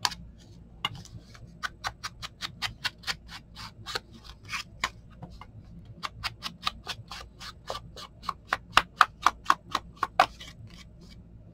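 Rapid, even clicking or tapping, about four to five clicks a second, in two runs with a short pause near the middle; the second run grows louder toward its end. It comes from hand-crafting work on a paper tag at the craft table.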